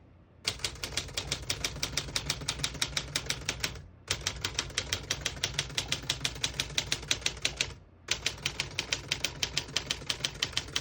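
Typing on a 1952 Smith-Corona Silent manual portable typewriter: fast, even keystrokes of the typebars striking the platen, about eight a second, in three runs broken by short pauses about four and eight seconds in.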